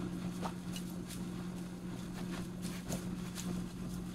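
Pizza-cutter wheel pressing through cold cinnamon-roll dough and tapping on the plate beneath, a few light scattered clicks over a steady low hum.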